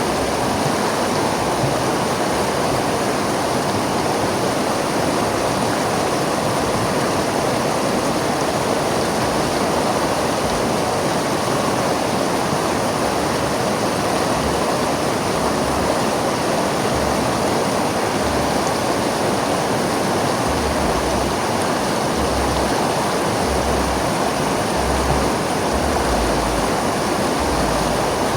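River water flowing over rocks: a steady, continuous rushing.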